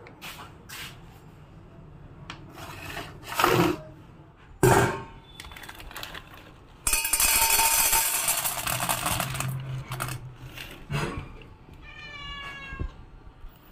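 Dry cat kibble poured from a sachet into a stainless steel bowl, rattling for about two and a half seconds around the middle. A cat meows a few times, with a falling meow near the end.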